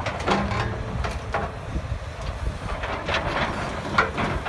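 Hydraulic excavators with demolition grapples working a pile of brick and metal debris: diesel engines running low, with scattered clanks and crunches of rubble, the sharpest about four seconds in. Wind buffets the microphone throughout.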